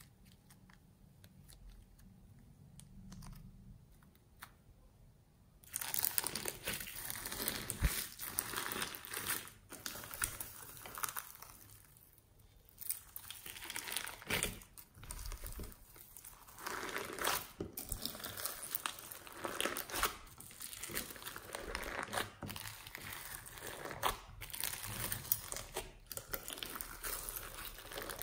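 Hands squeezing and stretching fluffy slime loaded with beads, sequins and glitter in a glass dish: a dense run of small clicks, pops and squishes. The first few seconds are soft and quiet; from about six seconds in the sound is much louder and busier.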